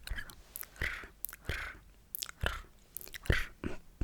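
Close-miked sticky, wet mouth sounds: irregular tongue and lip clicks and smacks with soft moist pops, several a second.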